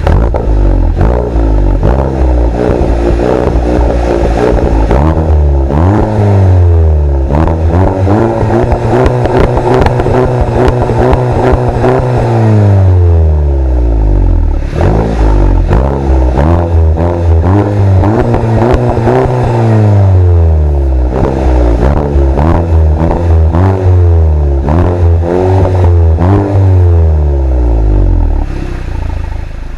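VW Golf GTI MK7's 2.0-litre turbocharged four-cylinder, free-revving with the exhaust resonator deleted, heard from the rear of the car. The revs rise and fall again and again: quick blips, and twice held high for several seconds before dropping back.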